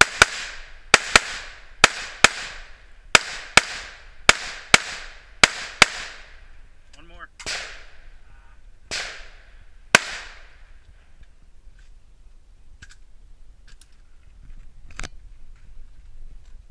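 Pistol shots fired in rapid pairs, about a dozen in the first six seconds, each with a short echo, then two more spaced shots around nine and ten seconds in.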